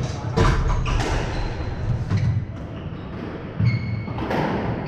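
Squash rally: about five sharp hits of the ball off rackets and the court walls, with short squeaks of shoes on the wooden floor between them.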